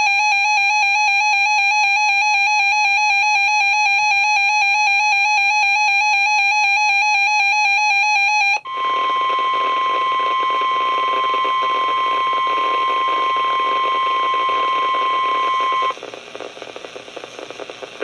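Weather alert radio sounding its warbling electronic alert alarm for about eight and a half seconds, then switching to the NOAA Weather Radio warning alert tone, one steady high tone for about seven seconds. This marks an incoming severe weather warning and is followed by a couple of seconds of faint radio hiss.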